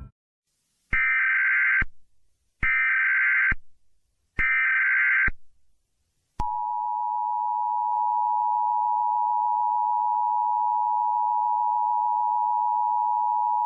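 Emergency Alert System SAME header: three short bursts of warbling data tones, about a second each with short silences between. About six seconds in, the steady two-tone EAS attention signal begins.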